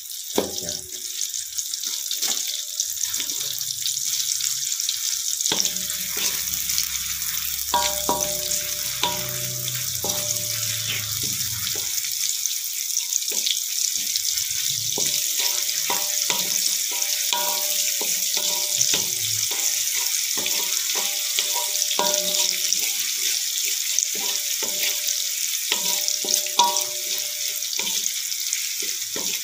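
Sliced onions sizzling steadily in hot oil in a wok. A wooden spatula stirs them, clicking and scraping against the pan many times, more often in the second half.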